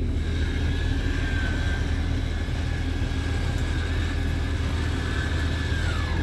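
Motorhome slide-out room retracting: its drive motor runs with a steady whine that winds down with a falling pitch near the end as the slide comes fully in, over a steady low hum.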